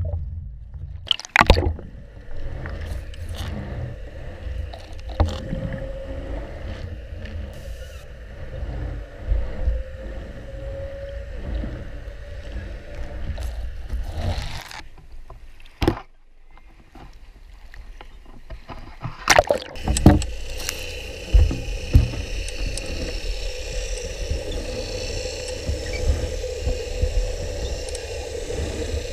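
Canal water moving around the submerged canvas, with a constant low rumble and a faint steady drone. Sharp knocks come about a second and a half in, near the middle, and several more from about two-thirds of the way through.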